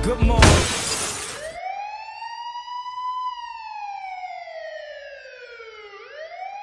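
A loud burst of crashing noise lasting about a second, then a single siren wailing slowly: it rises for about two seconds, falls for about three, and starts to rise again near the end.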